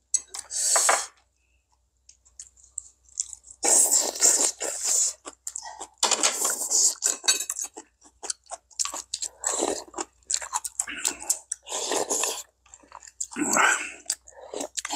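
Close-miked mukbang eating sounds: spoonfuls of goat-meat soup slurped and chewed, in irregular bursts of half a second to a second, with a quiet gap of about two seconds near the start.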